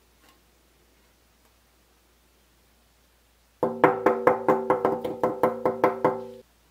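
A metal ceiling-fan blade being tapped rapidly, about a dozen strikes at roughly four a second, each setting it ringing with the same few clear tones. The ringing stops suddenly, as if the blade is damped by hand.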